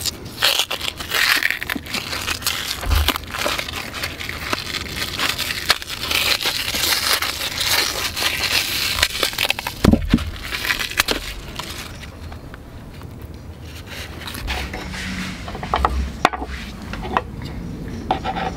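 Plastic cling film being peeled off a plastic food tray, crinkling and crackling in irregular bursts that ease off about two-thirds of the way through.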